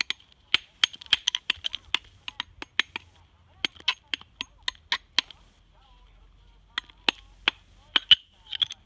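Hammer striking a rough natural whetstone stone in quick, irregular light blows, each with a short high ring. This is a tap test: the blows find and split the stone along its weakly bonded layers. The blows pause for about a second and a half past the middle, then resume.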